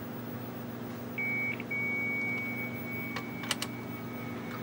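300-baud Bell 103 modem handshake over a phone line. The answering modem's steady high carrier tone starts about a second in, drops out briefly, then holds. Near the end a fainter, lower originate tone from the Tandy DCM-6 joins it as the two modems connect. A few light clicks come a little after three seconds.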